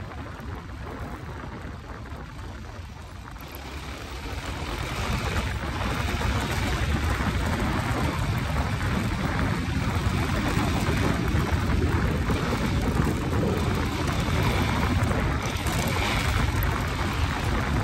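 Motorcycle running along a gravel road and onto grass, its engine and tyre noise mixed with a steady rush of wind on the microphone, growing louder about four seconds in.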